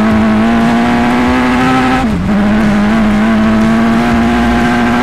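Suzuki Hayabusa motorcycle engine in an off-road cross-kart buggy pulling under power, heard from inside the cockpit. Its note holds high and steady, dips briefly about two seconds in, then picks straight back up.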